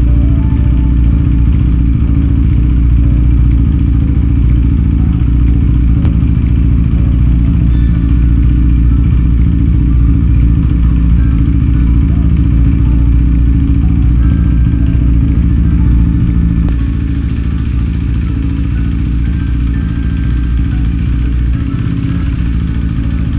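KTM RC 390's single-cylinder engine idling steadily in neutral, unrevved, just after a first start following about eleven months of storage. The sound gets a little quieter about two-thirds of the way through.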